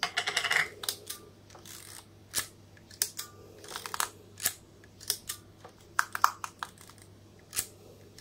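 Olympus 35 DC rangefinder's film transport being worked by hand, a short ratcheting rasp at the start followed by a string of sharp mechanical clicks. This is the rewind knob taking up the film slack and the film being wound on after loading.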